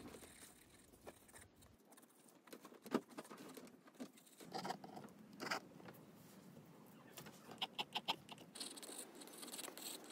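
Pencil drawing on sketchbook paper: short scratchy strokes and light taps of the point on the page, turning into a steadier faint scratching near the end.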